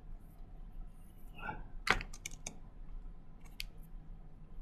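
Computer keyboard keystrokes: a quick run of four or five clicks about two seconds in, then two more clicks a little later.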